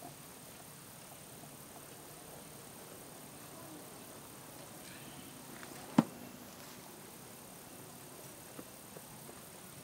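Faint outdoor ambience with a thin, steady, high-pitched insect whine, and one sharp knock about six seconds in.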